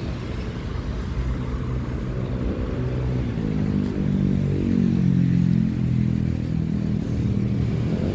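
Heavy vehicle engine running nearby, a steady low drone that grows louder through the middle and eases slightly near the end, over street traffic noise.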